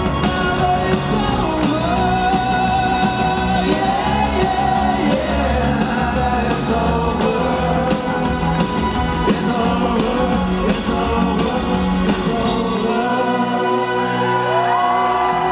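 Live rock band playing with drums, bass and guitar, male lead vocals sung over it. About two seconds before the end the drums and bass drop away, leaving the voice and higher instruments.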